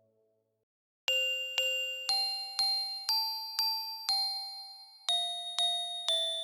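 MIDI recreation of a Japanese train's onboard announcement chime. Glockenspiel-like struck notes come in about a second in, roughly two a second, most pitches struck twice in a short stepping melody. Before it, the last note of the previous chime dies away.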